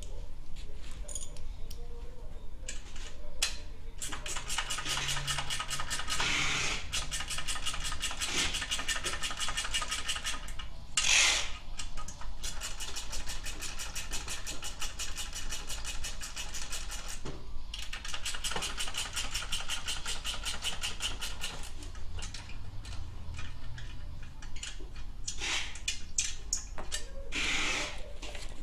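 Ratchet wrench clicking rapidly in two long runs with a short break between, tightening the muffler's mounting bolts, with a few sharper metal knocks and scrapes.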